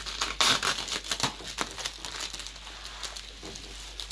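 Bubble wrap crinkling and crackling as it is pulled open by hand. A loud burst about half a second in, busy crackling for the next second or so, then quieter crackles.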